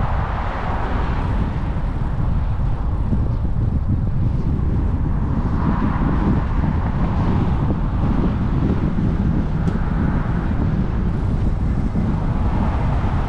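Wind rushing over the microphone and tyre noise from a moving e-bike, a steady rumble with no pitched engine sound.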